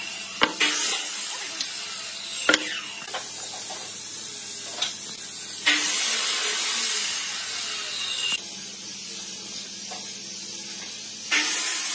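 A pine beam set down on a wooden workbench, with two sharp knocks about half a second and two and a half seconds in. Then a steady hiss with a low hum, which changes abruptly a few times.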